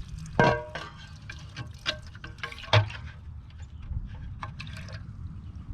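Water running out of a Nelson automatic horse waterer's float valve as it is tested. Two sharp metallic clinks, about half a second in and again near three seconds, with smaller clicks between.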